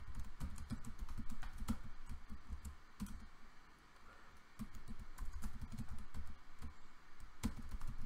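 Typing on a computer keyboard: runs of quick keystrokes, with a pause of about a second near the middle.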